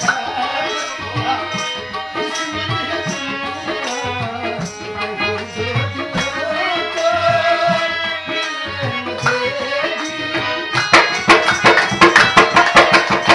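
Live qawwali: harmoniums sustaining chords and melody under a man's singing voice, with a dholak barrel drum keeping the rhythm. About eleven seconds in, the percussion turns denser and louder.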